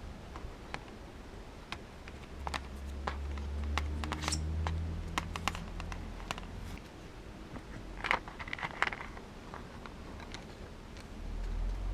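Scattered clicks and taps of the plastic case and parts of a disassembled Sony TV remote being handled, with a close cluster of clicks about eight seconds in. A low rumble rises in after about two seconds and fades out about seven seconds in.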